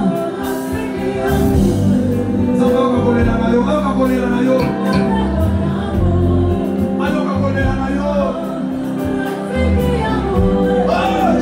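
Live gospel worship music: a choir singing with a band, over a strong bass.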